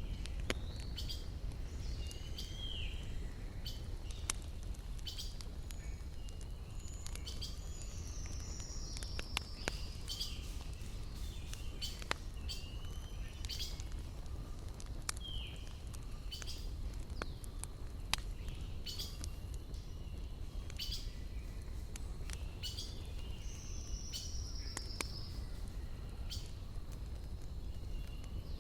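Campfire wood crackling with sharp, irregular pops over a steady low rumble, while small birds call repeatedly with short chirps and a few falling whistled notes.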